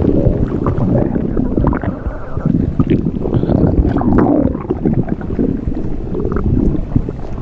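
Belly-inflation sound effect: continuous, loud, churning stomach gurgling and rumbling.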